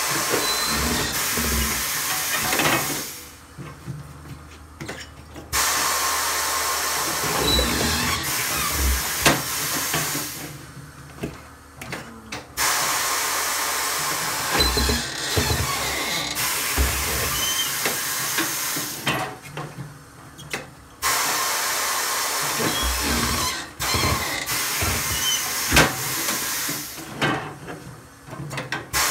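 Tire changer's pneumatic bead breaker hissing with compressed air as it is worked, in four long stretches of several seconds each that cut off between strokes, with a few sharp knocks as the blade pushes the tire bead off the rim in small bites.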